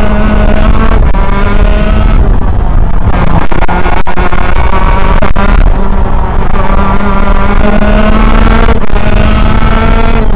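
125cc gearbox kart's two-stroke engine running hard, heard from onboard, its revs rising and falling through the corners, with a few brief dips in the sound about four to five seconds in.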